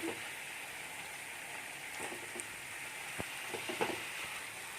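Marinated chicken leg pieces sizzling steadily in hot oil, butter and ghee in a frying pan, with a few light knocks and scrapes of a utensil against the pan as the pieces are turned, clustered about three to four seconds in.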